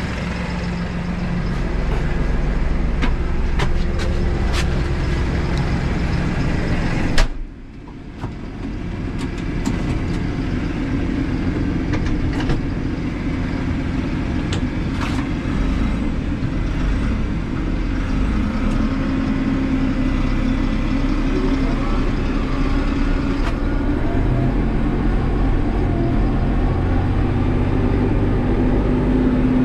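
Small Deutz tractor's diesel engine running as it is driven. About seven seconds in there is a sharp click, then the sound drops suddenly and builds back up over the next couple of seconds.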